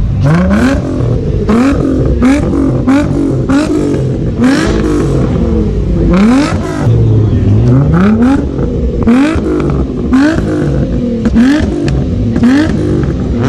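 Car engine revved hard over and over in quick blips, about one a second, its pitch sweeping up and dropping back each time, with one longer rev a little past halfway.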